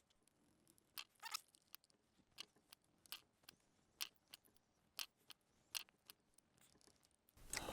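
Near silence with faint, scattered small clicks and taps: the back cover being fitted onto a chain hoist's pendant controller.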